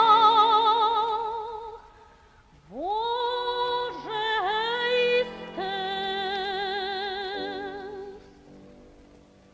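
Woman singing a Yiddish song in long held notes with wide vibrato over soft sustained accompaniment. A phrase fades out, and after a short pause a new phrase slides up into its first note and ends in a long held note that fades away.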